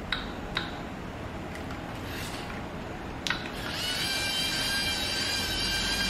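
A few small plastic clicks from the buttons of a Lego Mindstorms EV3 brick. About three and a half seconds in, the Lego Technic car's EV3 electric motors start with a steady high whine as the car drives off.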